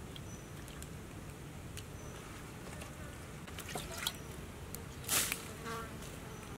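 Wet raw prawns being handled and set down on a wooden cutting board: scattered soft clicks and squelches, with a louder short rustle about five seconds in.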